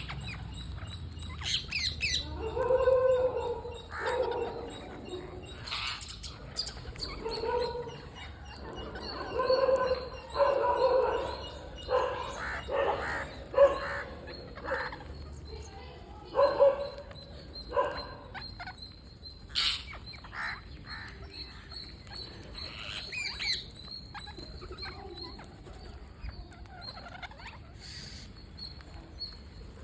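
Green parrots calling: many short, harsh squawks at irregular intervals, thick through the first two-thirds and thinning out near the end. A thin, faint high steady tone runs underneath.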